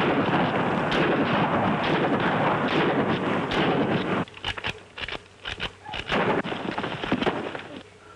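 Revolver gunfire: a dense, unbroken volley for about the first four seconds, then single shots at uneven spacing that thin out near the end.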